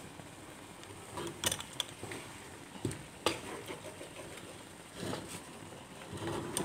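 Wooden spatula scraping and knocking against a nonstick wok as eggs and pak choy are stirred, in four short bursts of strokes.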